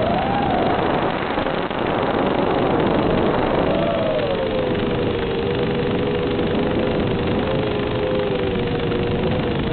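FPV quadcopter's brushless motors and propellers buzzing under a steady hiss, a pair of close tones whose pitch wavers, drops about four seconds in and then holds steady with the throttle.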